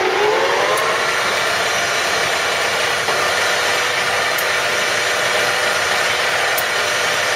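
Union BFT125/5 horizontal boring machine's spindle drive and facing head spinning up to the high speed of 710 RPM: a whine rising in pitch for about the first second, then running steady.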